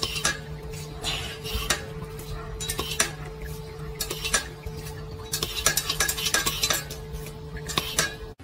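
Dog stepping again and again on the plastic foot pedal of a step-on pet water fountain: irregular sharp clacks, with water spurting, over a steady low hum.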